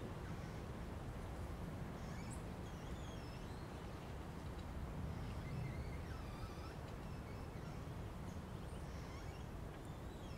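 Forest ambience recording of steady wind on a snowy winter day, with faint short bird calls now and then.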